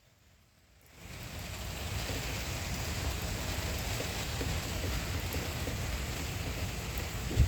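Steady rain falling in a thunderstorm, coming in about a second in after a brief dropout and then holding as an even hiss with a low rumble under it.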